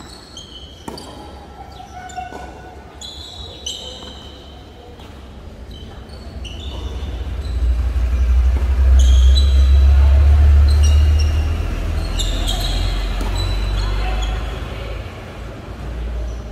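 Tennis rally on a hard indoor court: sneakers squeaking sharply on the floor and the knock of rackets hitting the ball, several times over. A low rumble swells up in the middle and is the loudest sound.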